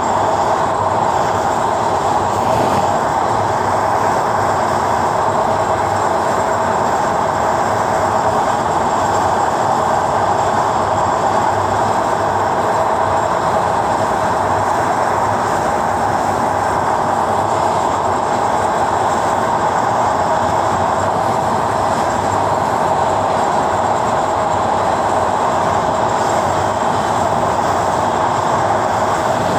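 Passenger train running at speed across a steel truss rail bridge, heard from alongside the carriage: a steady, loud rush and rumble of the wheels on the rails.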